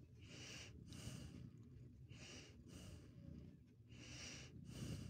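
Slow, steady breathing close to the microphone: each breath is a pair of soft airy hisses, in and out, about every two seconds, over a faint low rumble.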